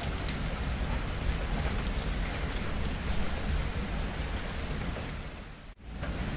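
Steady heavy rain falling, with a low rumble underneath. About five and a half seconds in the sound fades to a brief gap and then returns.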